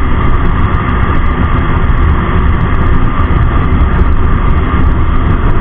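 Steady rush of wind and road noise on the camera of a moving motorcycle, with engine noise underneath.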